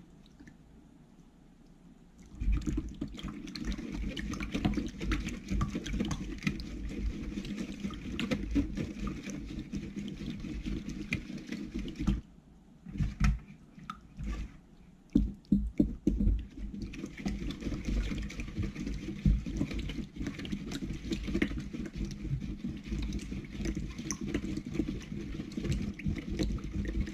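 Glue and borax slime mixture being stirred as it thickens, a continuous wet squelching and scraping. It starts about two seconds in, pauses briefly around the middle with a few knocks, then carries on.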